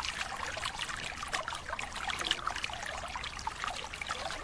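Water splashing and trickling around a net full of live fish being hauled and handled in shallow water: a steady, dense run of small, quick splashes.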